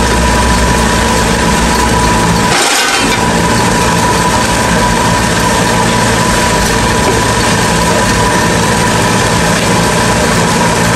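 Metal lathe running steadily while turning a part, a constant machine hum with a fixed whine. About two and a half seconds in, the low hum briefly drops out and a short hiss is heard.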